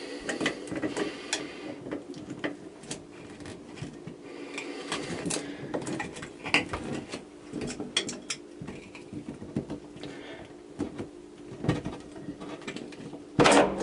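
Pliers and a wrench working an old under-sink water shutoff valve loose: scattered small metal clicks and knocks as the jaws grip and turn it, with a louder clank near the end.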